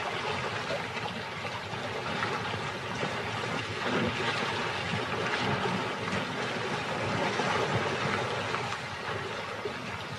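Steady splashing and sloshing of water as buffalo wade through a shallow pool.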